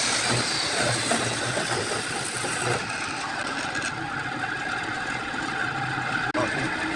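A power tool's motor running steadily, its tone changing about three seconds in.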